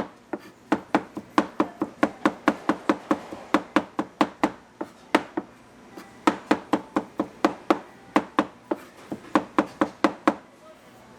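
Knife chopping on a cutting board: quick, even strikes about four a second, in three runs with two short pauses.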